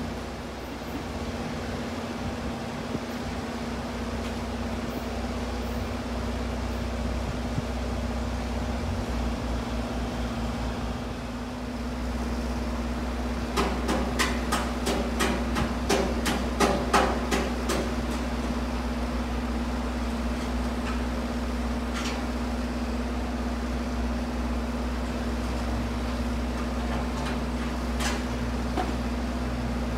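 Steady hum of an idling train's engine, holding one low tone. About halfway through comes a quick run of about a dozen sharp metallic clicks, roughly three a second, then two single clicks later on.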